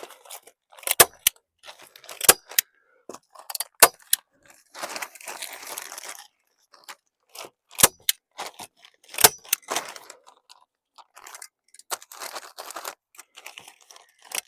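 Staple gun snapping staples through a plastic sheet into timber, about six sharp single shots a second or more apart, with the plastic crinkling in between as it is handled.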